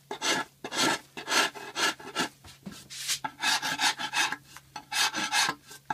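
Metal rasp scraping over a hardened Hydrostone (gypsum cement) lifecast sculpture in quick, uneven strokes, about two or three a second, shaping stone that has set too hard for the knife.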